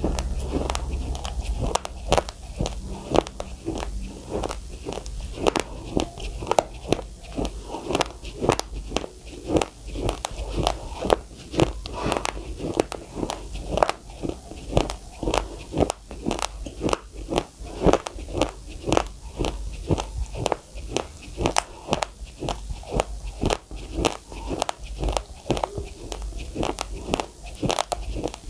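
Uncooked white rice being chewed close to the microphone: a dense, irregular run of sharp crunches, several a second, as the dry grains crack between the teeth.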